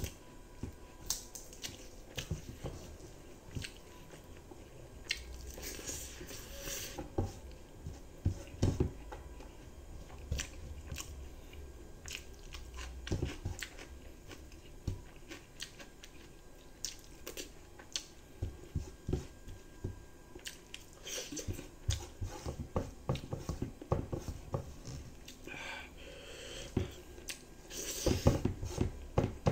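A person chewing and eating rice with fried egg and dal, with irregular wet mouth clicks, getting busier near the end.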